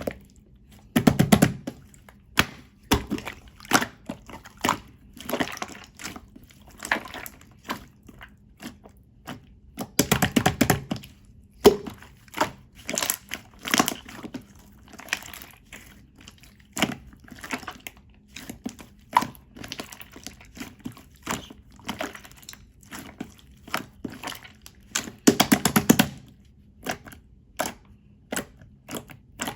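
Clear slime being squished and pressed by hand, making irregular sticky clicks and pops, with a few denser runs of crackling pops lasting about a second each.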